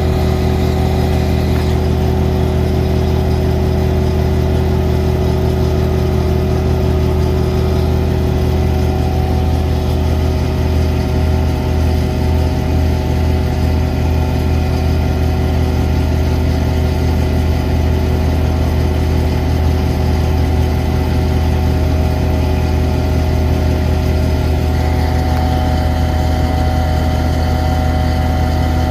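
Ditch Witch FX30 vacuum excavator's Kubota D1105 three-cylinder diesel engine idling steadily, with a slight change in tone near the end.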